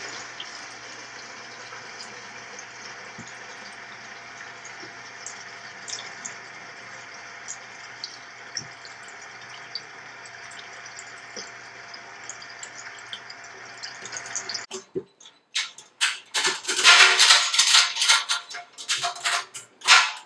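Wort pouring from a pump-fed hose into a stainless steel fermenter bucket: a steady splashing with a faint pump hum, which stops suddenly about three-quarters of the way in. A series of sharp metal clanks and clicks follows, the loudest sounds here, as the stainless lid is set on the bucket and its clamps are closed.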